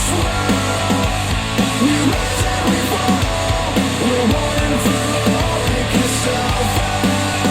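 Instrumental rock music with guitar and a fast, even rhythm of short bass notes, played back through KEF R3 bookshelf speakers on an IOTAVX SA3 integrated amplifier.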